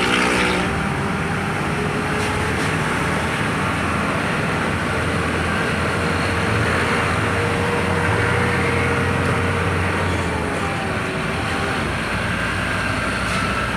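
Large truck driving along in traffic: its engine running steadily under a dense wash of road and traffic noise.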